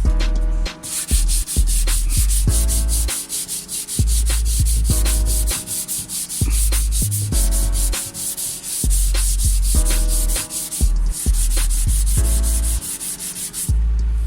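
Background music with a steady beat: quick hi-hat-like strokes about four a second over deep bass notes and held chords, with a short break near the end.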